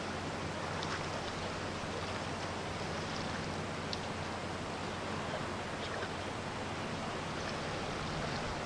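Steady rushing outdoor noise of wind and small lake waves lapping, with a few faint clicks.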